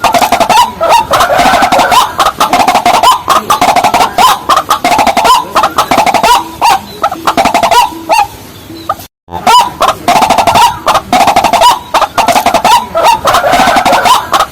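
Rails (white-breasted waterhen or watercock type) calling loudly: rapid, repeated clucking notes that carry on without pause. The sound cuts out briefly about nine seconds in and then resumes.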